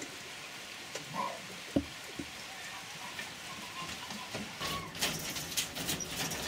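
A steady rain-like hiss with scattered small clicks and a couple of faint short squeaks, then a denser run of knocks and rattles over the last two seconds.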